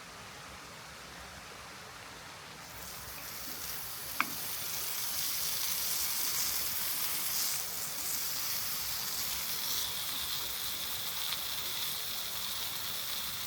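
Shrimp meat frying in a hot pan, a steady sizzle that starts about three seconds in and holds, with a single sharp click of a utensil against the pan just after it begins.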